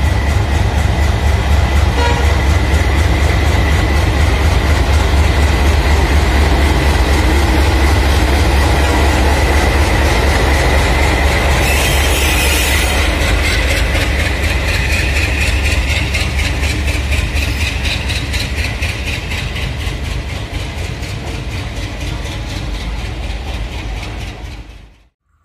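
WDP3A diesel-electric locomotive's turbocharged ALCo 16-cylinder engine running loud under load as it passes close by, with a deep rumble and a steady high whine. A brief hiss comes about halfway through. The engine fades after about fifteen seconds, leaving the passenger coaches rolling past with a rhythmic clickety-clack of wheels on the rail joints.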